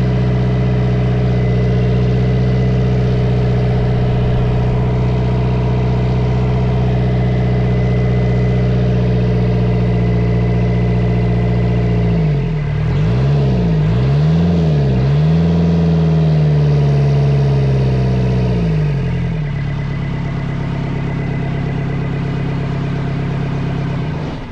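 Kubota V2203 four-cylinder diesel running smoothly without misfiring, the air now purged from its injector lines. It idles steadily, is revved up and down several times in the middle, then settles back to idle and is shut off at the very end.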